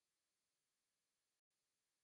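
Near silence: a faint, even hiss at the recording's noise floor, broken by a brief total dropout about one and a half seconds in.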